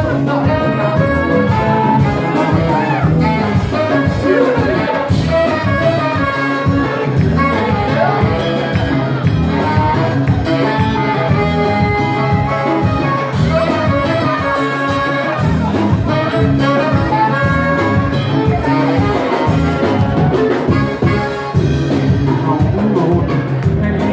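A live Ethiopian band playing loud and steady, with a saxophone horn line over electric bass, electric guitar and hand drums.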